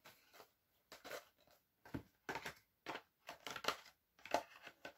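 Plastic DVD box-set case being handled: a run of irregular clicks and rustles as discs and trays are moved and the case is shut.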